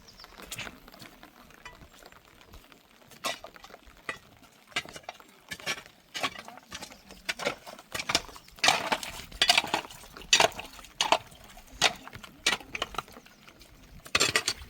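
An irregular series of short scraping and clinking strokes, about one or two a second, louder from about eight seconds in.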